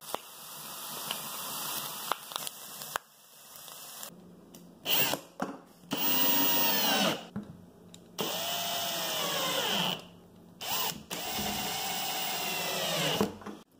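Power drill run in several short bursts, its motor whirring and winding down in pitch after each trigger release, during recessed ceiling light installation.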